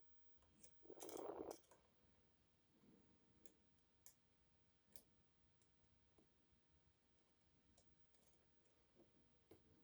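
Faint, scattered clicks of lock-picking tools working the pins inside an Adamant spinning-key pin-tumbler lock, with a brief louder scrape about a second in.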